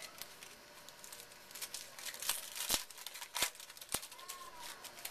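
Wrapper of a 2011 Donruss Elite Football trading-card pack crinkling and tearing as it is opened by hand: a scatter of sharp crackles with a few louder snaps in the middle.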